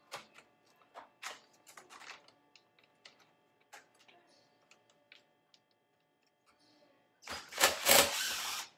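Light clicks and taps from handling tools and the plastic grille parts. Near the end a cordless drill runs for about a second and a half, backing a screw out of the grille's clips.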